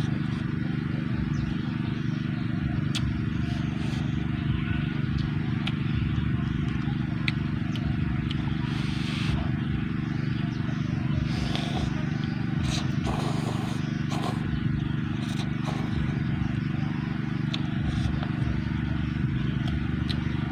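Noodle slurping and eating sounds, a few short slurps between about 9 and 14 seconds in, with small clicks of chopsticks against a paper cup. Under them a steady low hum of unknown source.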